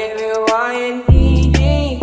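Background song: a sung melody over a deep bass line and beat, with a new bass note coming in on a hit about a second in.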